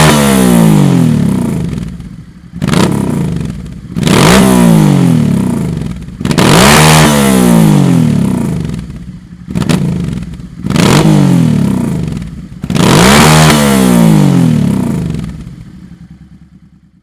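Honda NTV 650 Revere's V-twin engine through a Dominator aftermarket silencer, revved in repeated throttle blips, about six or seven, each rising sharply and falling back, dying away near the end.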